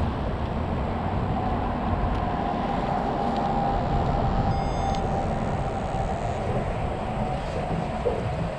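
Wind rumbling steadily on the microphone of a head-mounted camera, with a brief faint high beep about halfway through.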